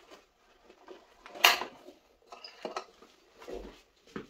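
Hard clacks and knocks of parts being handled on an opened electric scooter deck with its battery pack fitted: a few separate hits, the loudest about a second and a half in.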